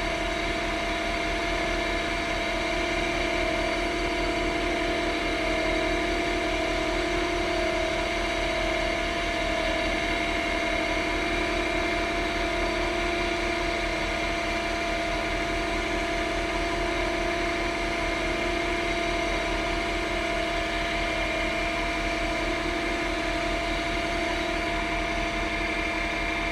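Small pen-turning lathe running steadily at about 2400 rpm, a steady motor whine that holds one speed throughout.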